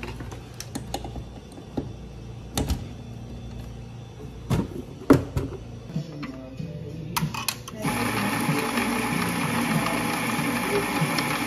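Metal clicks and clunks of an espresso portafilter being handled, the loudest about five seconds in. About eight seconds in, an espresso grinder starts and runs steadily, grinding coffee into the portafilter.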